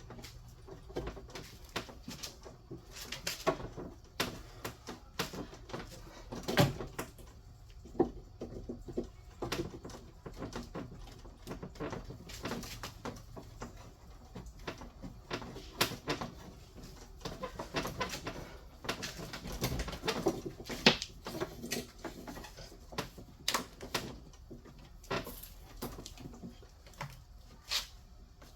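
Irregular light clicks and knocks of small parts and tools being handled, with no steady rhythm; the sharpest knocks come about a third of the way in and again about two-thirds through.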